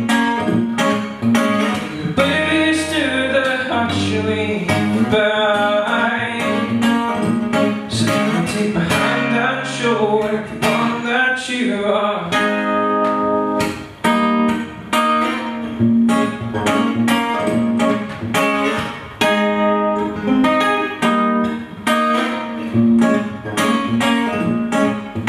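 Acoustic guitar strummed in a steady rhythm, with a man singing over it for roughly the first half; the second half is the guitar alone.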